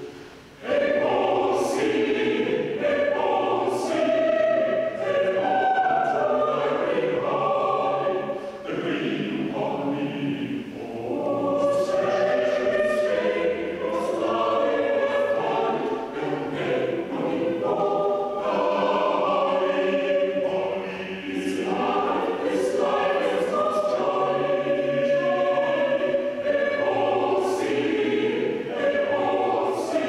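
Mixed-voice chamber choir, sopranos through basses, singing a cappella with several interweaving parts; the singing dips briefly about half a second in, then carries on without a break.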